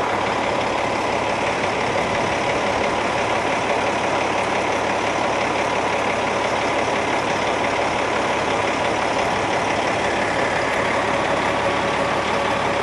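Diesel semi-truck engine running at a steady idle, an even drone with no change in speed.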